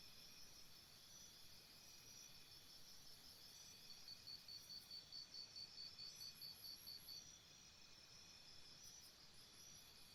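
Faint chirping of insects such as crickets, a high chirp repeating about four times a second with fainter, higher chirps among it, over a low background hiss.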